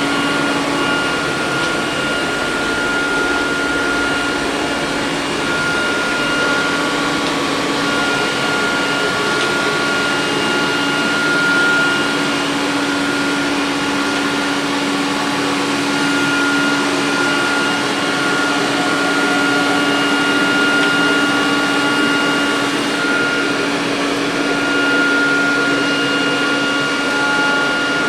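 Electrolux robot vacuum cleaner running: a steady motor and suction noise with a high, even whine that drops out and returns now and then.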